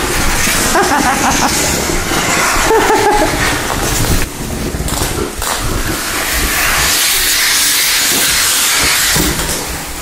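Central vacuum hose and wand running, a steady rushing hiss of air with brief drops in level about four and five seconds in.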